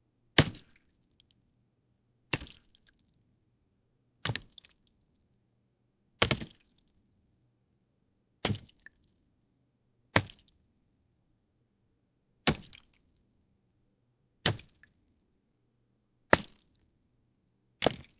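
Cartoon-style wet slime splat sound effect, repeated about every two seconds: each one a sharp gooey hit with a short squishy tail.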